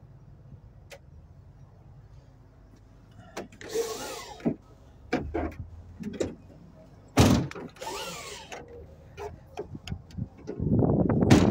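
Handling noises inside a van: two rubbing, sliding scrapes with scattered clicks and a sharp loud knock about seven seconds in. Near the end, wind buffets the microphone as the camera moves outside.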